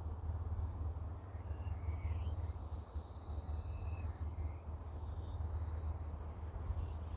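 Small birds chirping and singing, with a rapid high trill in the first half, over a steady low rumble.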